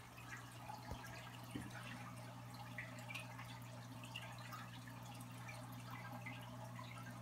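Aquarium air stone bubbling, with a stream of small bubbles popping and dripping at the water surface over a steady low hum from the tank's equipment.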